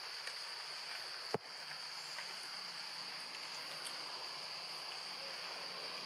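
Steady high-pitched drone of an insect chorus over a constant hiss, with a single sharp click about one and a half seconds in.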